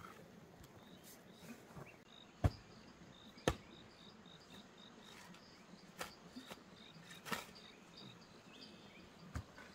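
Hoe blade chopping into packed soil in a few sharp knocks, the two loudest about two and a half and three and a half seconds in, with fainter strikes later. Insects chirp steadily behind it in short, evenly repeated high notes.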